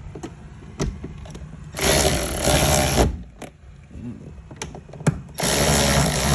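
A power driver with a 10mm socket runs twice, about a second and a half in for over a second and again near the end for about two seconds, tightening a bolt down; a few short clicks fall between the runs.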